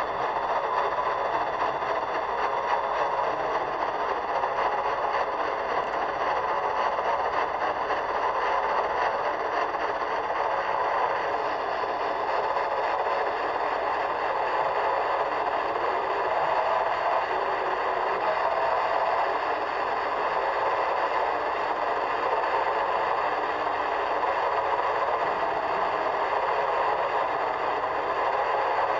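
Static from a portable AM radio tuned to 1340 kHz, coming through its speaker as a steady, rough noise without a break.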